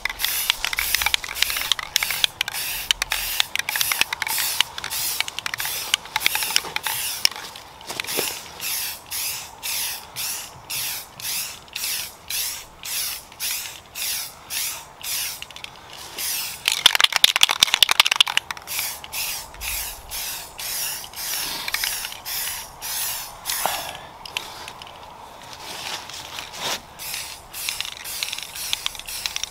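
Aerosol spray paint can spraying a base coat in quick short bursts, repeated steadily, with one longer, stronger burst about two-thirds of the way through.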